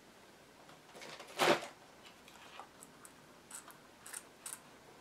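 Hands handling tools and parts on a workbench: a brief rustling clatter about a second and a half in, then a few light clicks.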